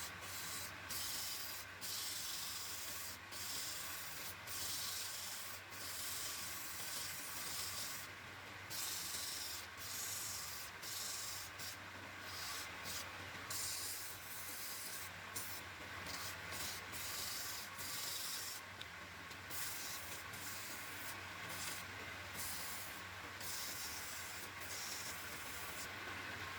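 Sandpaper rubbing on wood in repeated irregular strokes, over a steady low hum.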